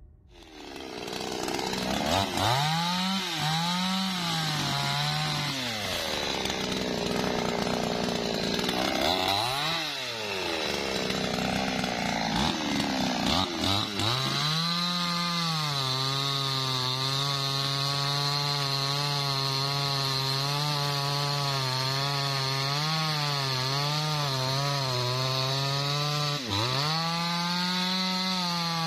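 Two-stroke chainsaw running under load while cutting into a tree trunk at its base. The engine speed sags and picks up again several times, then holds at a fairly steady high pitch through the cut, with a brief dip and recovery near the end.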